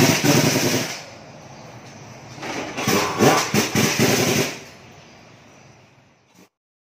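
Rapid metallic clattering and knocking in two bursts, about a second and about two seconds long, as a heavy truck tyre on its steel rim and the metal mounting cones are handled at a wheel balancer. It then dies away and cuts off.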